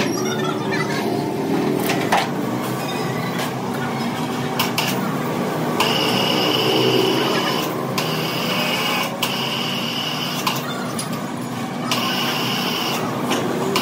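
Workshop machinery running steadily with a low hum and scattered clicks, joined by a high whine for about two seconds in the middle and again briefly near the end.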